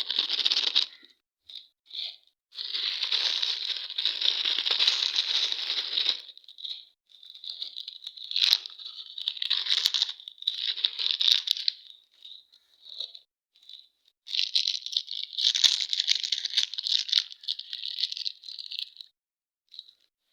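Crinkly plastic candy and chocolate wrappers being rustled and torn open, in several bursts of a few seconds with short pauses between them.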